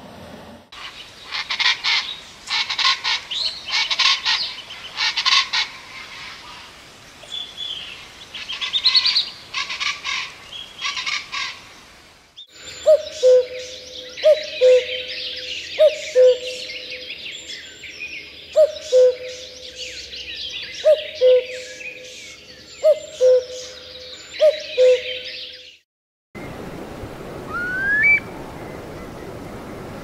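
Laughing kookaburra giving its cackling laugh call for about twelve seconds. Then a common cuckoo calls its two-note "cuck-oo" about eight times at an even pace, over other birdsong. Near the end, over a steady hiss, comes one rising whistle, the start of a Eurasian curlew's call.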